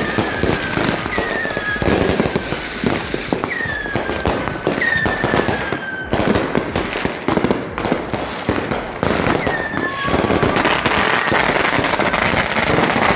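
Firecrackers and fireworks going off in a dense, continuous barrage of pops and cracks. Several short falling whistles sound over them.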